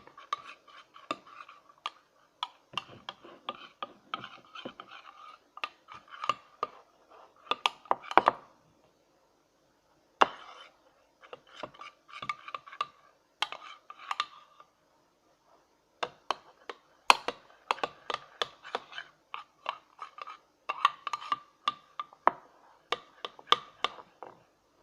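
A utensil stirring a runny mix of clear glue, water and paint in a bowl, scraping and clicking against the bowl in quick irregular strokes, with two short pauses. This is the mixing stage before the eye drops activator goes in.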